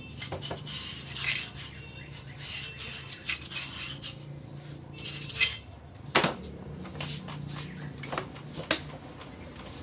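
Metal parts and tools of a Karcher pressure-washer pump clinking and knocking as it is taken apart, in scattered sharp strikes, the loudest a little after five and six seconds in, some with a short metallic ring. A steady low hum runs underneath.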